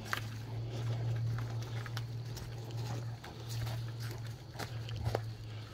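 A large dog sniffing and breathing close by on a leaf-littered forest trail, with footsteps and leash knocks as short clicks, over a steady low hum.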